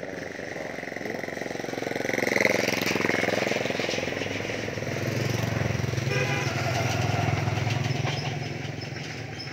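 A vehicle engine passes close by, swelling to its loudest about two and a half seconds in and falling in pitch as it goes past. Then another engine runs steadily through the middle and fades near the end.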